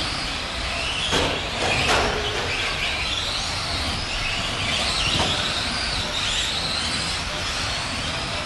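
A pack of electric Tamiya Euro Truck RC racing trucks running round the track, their motors and gears whining and rising and falling in pitch as they speed up and slow down. There are a few sharp knocks about a second in, at about two seconds, and again around the five-second mark.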